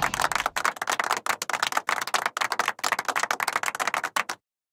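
Cartoon footsteps sound effect: a rapid, even run of light tapping clicks, like a typewriter, that cuts off abruptly near the end.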